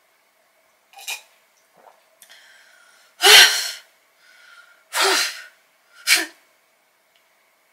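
A woman's short, sharp, breathy vocal bursts with no words: a small one about a second in, the loudest a little past three seconds, and two more around five and six seconds.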